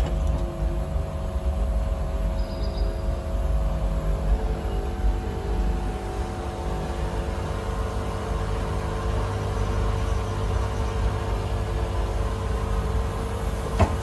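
Samsung Ecobubble front-loading washing machine running mid-cycle: a steady low rumble with a steady hum as the pump drains the soapy wash water out through the hose.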